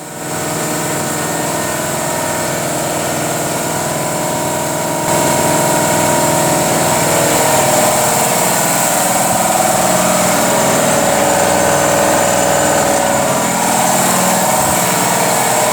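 Home-built waste-oil burner firing into a foundry: a loud, steady jet-like noise with a motor-like hum under it, stepping up in loudness about five seconds in.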